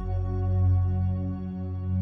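Ambient Tibetan meditation music: a low sustained humming drone with steady ringing overtones, swelling and easing gently.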